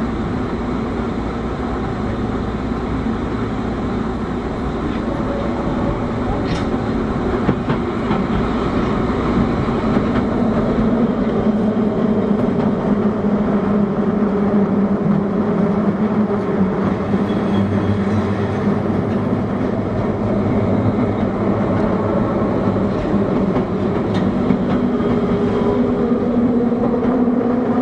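Osaka Metro 21 series subway train running, heard from inside the car: steady wheel and rail noise with a low steady hum, getting a little louder about ten seconds in, and a few faint clicks.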